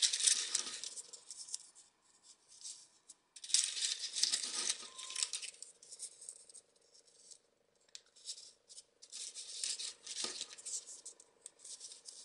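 Folded paper 3D origami modules rustling and clicking against each other as hands sort through a loose pile of them and push them into the model. The rustling comes in several bursts with short pauses, with one sharper click about ten seconds in.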